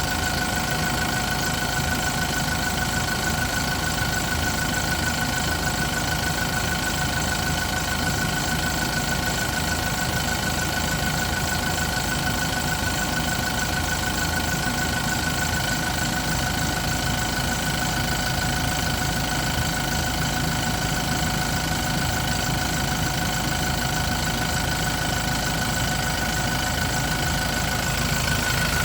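Yale diesel forklift engine idling steadily, running again after the crank-no-start repair.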